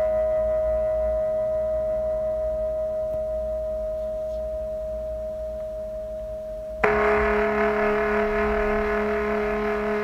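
A singing bowl rings and slowly fades. About seven seconds in, a lower-pitched bowl is struck and rings on with a slow pulsing wobble.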